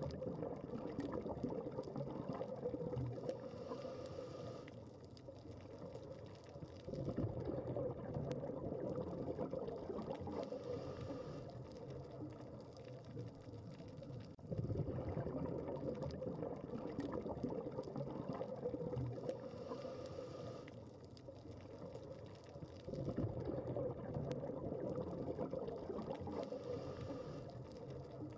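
Scuba diver breathing through a regulator underwater. Each breath is a short hiss on the inhale, then a few seconds later a loud rush of exhaled bubbles that fades away. The cycle repeats about every eight seconds, four times.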